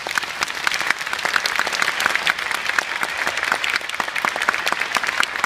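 Audience applauding: many hands clapping steadily after the music ends.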